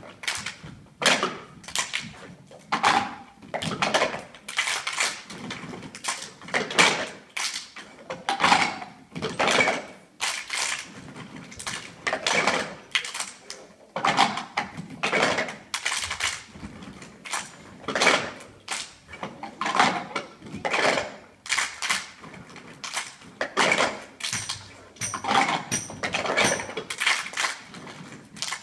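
A group of children playing a cup rhythm in unison: cups knocked and slapped on the wooden stage floor, with hand claps, in a pattern that repeats about once a second.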